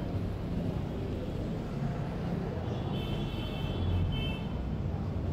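A steady low background rumble, with a faint high-pitched tone heard in two short spells around the middle.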